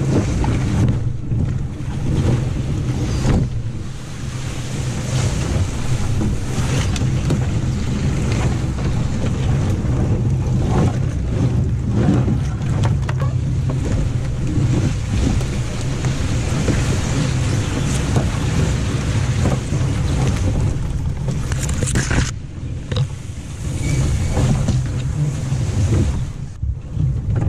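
Canoe hull dragged over grass and through brush: a continuous scraping rumble with branches swishing and crackling against it, picked up by a camera mounted on the canoe itself.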